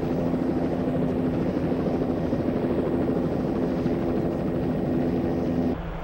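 An engine running steadily with a low, even drone. Near the end it cuts off abruptly to a quieter, lower hum.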